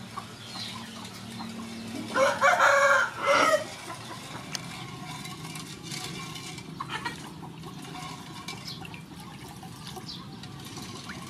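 A rooster crows once, loud, about two seconds in and lasting about a second and a half. Underneath, a wooden spoon scrapes faintly as it stirs liquid in a metal pot.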